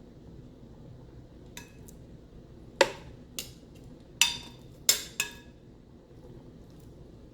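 A handful of sharp metallic clinks and clicks on the Ninja Speedi's top rack as chicken wings are placed on it, about six spread over a few seconds, the loudest a little under three seconds in.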